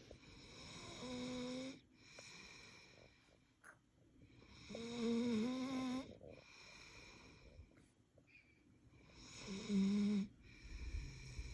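Pit bull snoring in its sleep: three louder snores about four seconds apart, each with a droning tone, and softer breathing between them.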